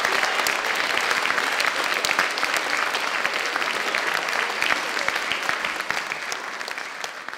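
Audience applauding, the clapping slowly fading away towards the end.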